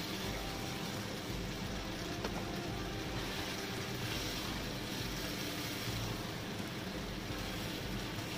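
Steady hiss and low rumble of sweet and sour sauce with vegetables cooking in a wok on a stove as a tapioca-starch slurry is poured in and stirred to thicken it.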